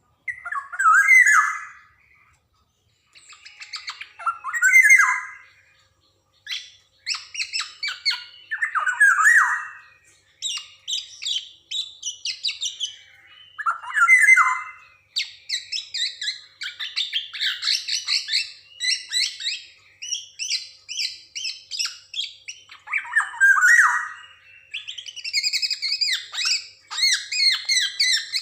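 Black-naped oriole (Javanese golden oriole) singing continuously: harsh, falling squawk-like calls every few seconds among rapid, varied chattering phrases that grow denser in the second half.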